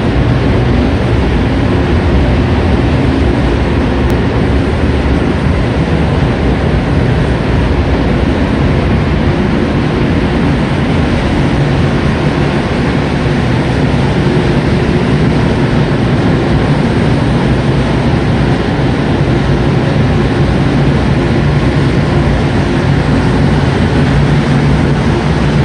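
Paint spray booth's ventilation fans running: a steady, loud rush of moving air with a low hum underneath.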